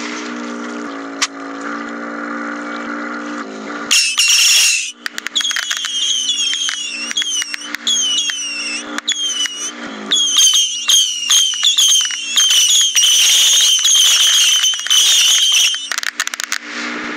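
RC model landing craft's motor running with a steady hum. From about four seconds in until near the end it is drowned by a dense barrage of sharp cracks from simulated gunfire and explosions, mixed with repeated shrill squeals.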